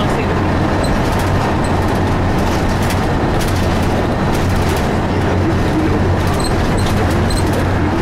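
A 2002 Blue Bird transit bus under way, heard from inside the cabin: its Cummins ISC diesel engine runs at a steady low hum over road noise, with scattered light rattles and clicks.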